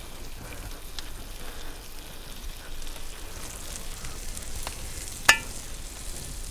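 Campfire crackling and sizzling steadily, with scattered small pops and one sharp click about five seconds in.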